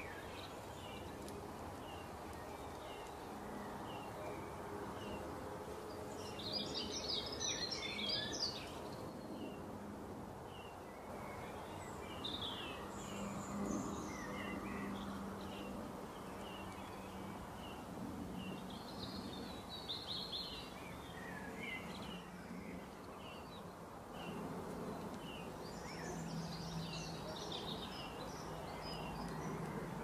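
Wild birds singing over a steady background hum. One bird repeats a short high chirp about once a second, and four bursts of rapid high twittering song come through, the loudest about seven seconds in.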